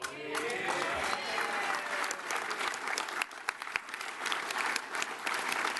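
Crowd applauding, with a few cheering shouts in the first couple of seconds.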